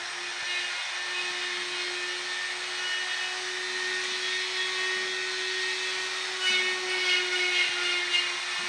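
Small power tool running steadily with an even hum while it cuts or grinds wood. Rougher, louder scraping comes in about six and a half seconds in, as the tool bites into the wood.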